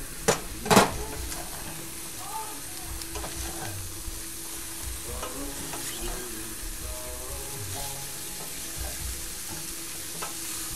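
Panko-breaded chicken sizzling in a skillet while a wooden spatula stirs and scrapes it. Two sharp clanks come in the first second as the glass lid is lifted off the pan.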